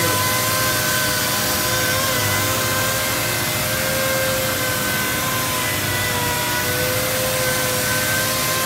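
Robot-held random orbital sander running steadily as it sands gray primer on a cabinet door: a steady whine that wavers slightly in pitch, with a hiss underneath.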